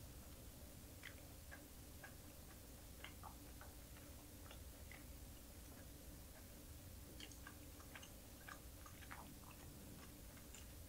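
Near silence: a quiet room with faint, scattered small clicks, busier in the second half, from wooden chopsticks picking through a pile of dried anchovies.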